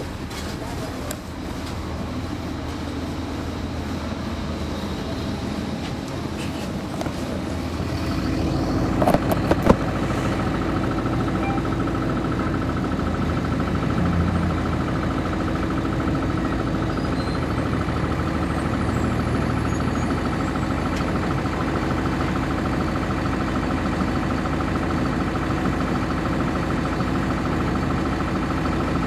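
Cummins ISC inline-six diesel of a 1999 NovaBus RTS transit bus running, heard from on board the bus. About eight seconds in the sound grows louder and a steady hum sets in, and a few sharp knocks come around nine to ten seconds.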